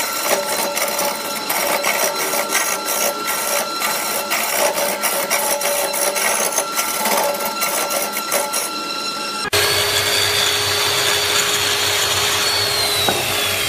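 Wood lathe running while a hand turning tool cuts a large spinning wooden block: a rough, chattering scrape over the machine's steady whine. About two thirds of the way in it cuts abruptly to a different machine sound, a low hum with a high whine that falls steadily in pitch near the end.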